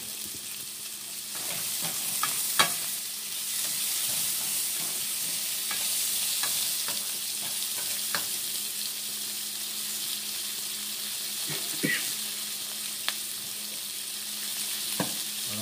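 Onion, garlic and yellow chiles (chile güero) frying in a stainless steel skillet: a steady sizzle that grows a little louder after the first second or so. A wooden spatula stirs the pan, with a few sharp clicks against the metal.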